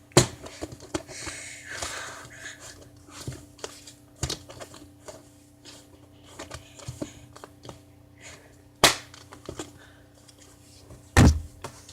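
Slime being squeezed and worked by hand, giving scattered crackles, clicks and small pops. Three louder sharp pops or knocks stand out, one right at the start, one about nine seconds in and one near the end.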